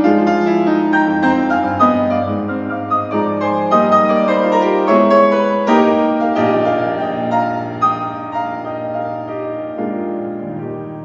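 Bohemia grand piano played solo: a fast, dense passage of many notes. It grows softer and lower after about six seconds.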